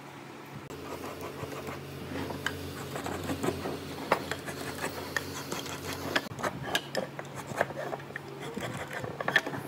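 Hand tools scratching and rubbing along pine boards while marking out, with frequent small clicks and light knocks as the boards and tools are handled, over a steady low hum.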